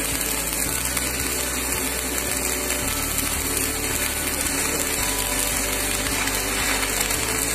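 Stick (shielded metal arc) welding along a square butt joint between two metal plates: the electrode's arc crackles and sizzles steadily, with a low hum underneath.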